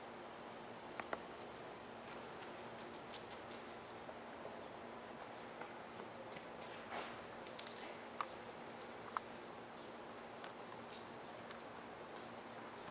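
Insects droning steadily at one high pitch, with a few faint ticks scattered through.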